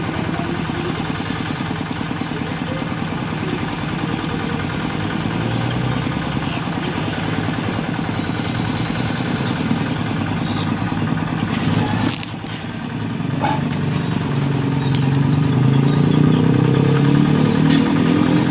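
Two-wheel hand tractor engine running steadily with a rapid pulsing chug. It dips briefly partway through, then grows louder and lower over the last few seconds.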